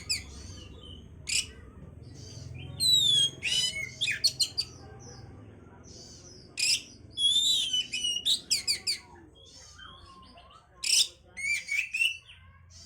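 Oriental magpie-robin (kacer) singing in three loud bursts of varied song: whistled notes that slur downward, mixed with quick sharp chips, with short pauses between phrases.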